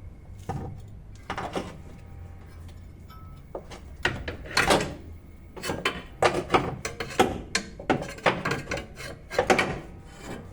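Irregular metallic clunks, knocks and scrapes as a new lower control arm is handled and fitted into a car's front suspension. The knocks are sparse at first and come thicker and louder from about four seconds in.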